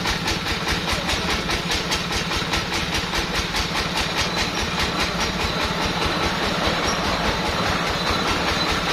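Sawmill machinery running steadily, with a fast, regular pulsing of about five or six beats a second that fades out about halfway through.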